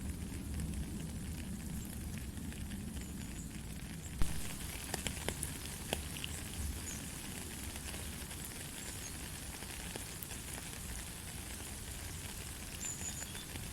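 Steady light rain, an even hiss with scattered drops tapping close by. A sharp drip about four seconds in is the loudest moment, and after it the hiss is brighter.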